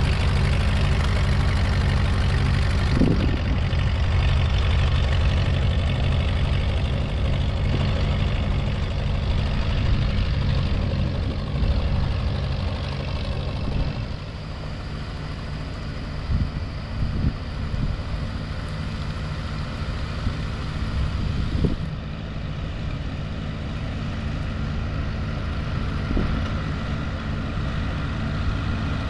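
Ford 8N tractor's four-cylinder flathead engine running steadily, freshly rebuilt. It gets somewhat quieter about halfway through, and a few short clunks sound over it.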